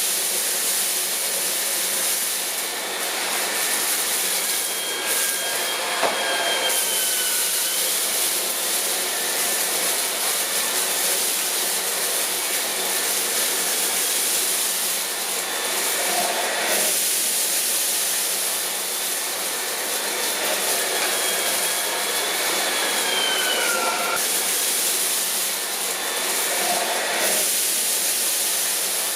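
Dreame T30 cordless stick vacuum, with its high-speed digital motor, running steadily in automatic mode while picking up debris from the floor. A high motor whine sits over rushing airflow. Twice, at about six seconds and near the end, a tone glides briefly downward.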